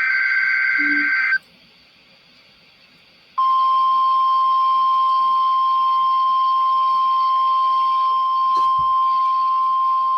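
NOAA Weather Radio test signal: the end of a SAME digital header burst, a harsh warbling data screech, stops about a second in. After about two seconds of hiss, the single steady 1050 Hz warning alarm tone starts and holds unbroken. This is the tone that switches on weather alert receivers.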